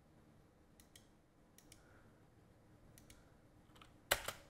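Computer mouse clicks: several faint clicks, mostly in quick pairs, with a louder pair of clicks near the end.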